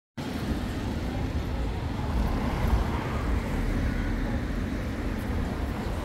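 City street traffic: a steady low rumble of passing cars and motor scooters.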